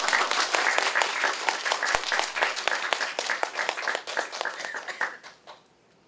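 Audience applauding: many hands clapping in a dense patter that thins out and stops about five and a half seconds in.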